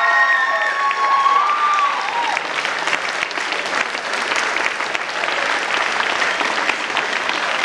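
Audience applauding, with a few voices cheering and whooping over the first two seconds, then steady dense clapping.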